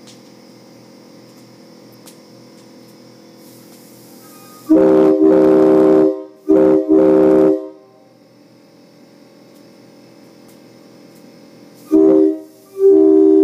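Multi-chime air horn of the train-horn type sounding a steady chord of several notes. There are two long blasts with brief breaks about five seconds in, then a short blast and a long one near the end.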